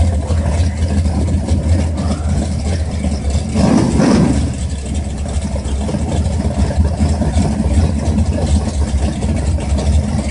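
Car engine running at a steady idle, with one brief rev about four seconds in.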